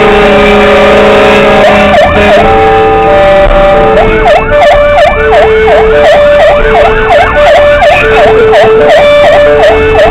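Fire engine sirens heard loud from inside the cab: a two-tone siren alternates between a higher and a lower note about once a second. From about four seconds in, a fast yelp pulsing a few times a second joins it, over the truck's engine.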